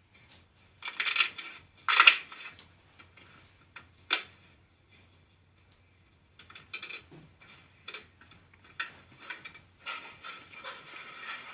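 Slime being squeezed and poked by hand: irregular crackling and popping clicks, loudest in two bursts about one and two seconds in, a single sharp pop about four seconds in, then softer scattered crackles.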